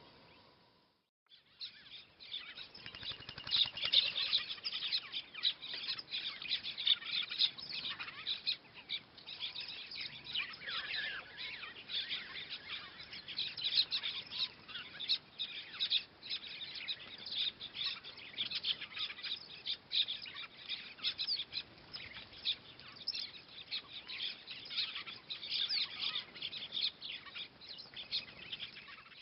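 Many small birds chirping and twittering at once, dense overlapping high-pitched calls, starting after a brief silence at the very beginning.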